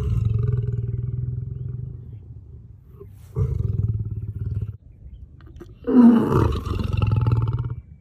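Male lion roaring: three long, low calls with a rough, pulsing texture, the third the loudest.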